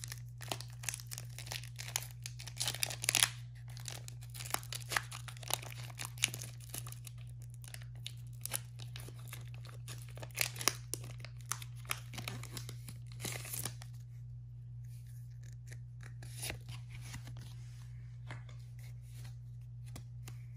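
Foil wrapper of a Pokémon Vivid Voltage booster pack being torn open and crinkled in the hands: a run of crackling rips and crinkles, thinning out about two-thirds of the way through to occasional soft rustles. A steady low hum runs underneath.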